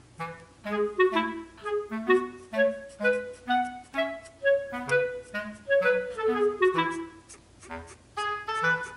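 Background music: a light, bouncy tune with a clarinet-like woodwind melody over a bass line stepping about two notes a second.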